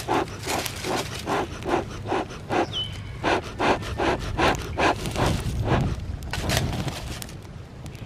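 Bee smoker bellows pumped in quick, even strokes, about two to three puffs of air a second, fanning burning paper and dry leaves in the smoker can as it is being lit. The puffing slows and fades near the end.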